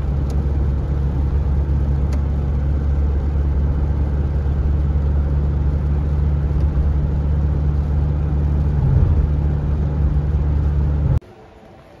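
Steady road and engine noise heard inside a car driving on a highway, a loud low rumble that cuts off suddenly near the end.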